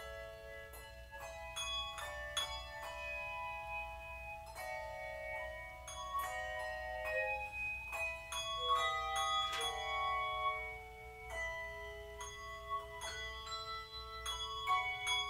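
Handbell choir playing a piece of music: many handbells struck one after another in a melody with chords, each note ringing on and overlapping the next.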